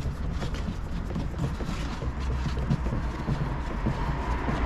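Light, irregular clicks and knocks of a screw being fitted and plastic parts being handled on the cover of a car's heater box, over a steady low hum.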